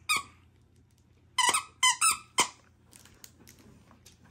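Dog squeezing a squeaky plush toy in its mouth, giving about five short, high-pitched squeaks, one at the start and a quick run of them in the middle.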